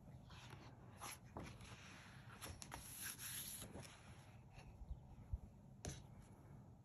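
Faint rustle of a paperback picture book being opened, its cover and pages turning, followed by a few light taps from handling it.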